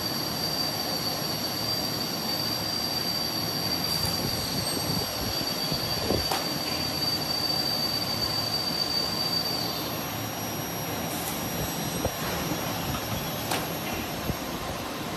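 Holytek PUR profile wrapping machine running: a steady mechanical din of motors, rollers and feed belts carrying profiles through. A thin high-pitched whine runs over it and stops about ten seconds in, and a few sharp clicks come through.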